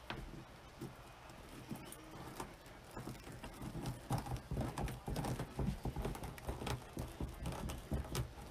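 Hands folding and scrunching a strip of plastic deco mesh on a cutting mat: quick, irregular crinkles and light taps, sparse at first and busier from about three seconds in.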